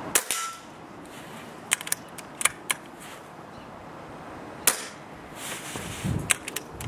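Two shots from a Brocock Compatto PCP air rifle, each a sharp crack, about four and a half seconds apart. Between and after them come smaller clicks of the side lever being worked to cock and load it.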